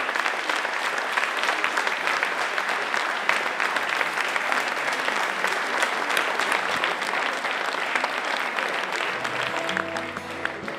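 Audience applauding with steady, dense clapping. It thins out about nine seconds in as acoustic guitar music starts.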